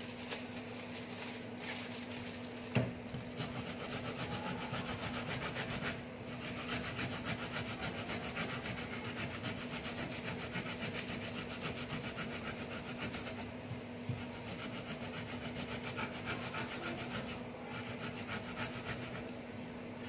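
Fresh ginger root being rubbed back and forth on a grater in rapid, even scraping strokes, with a few brief pauses.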